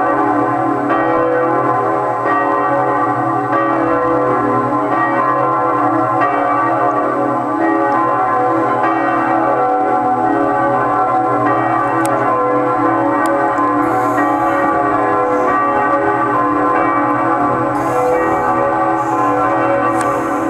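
Two large cathedral bells, "Marie" (C♯, Do#3) and "Jeanne-Frédérique" (B, Si2), both cast in 1858 by Havard of Villedieu, swinging in full peal (volée). Their strokes overlap in a continuous, loud ringing that calls to Sunday Mass.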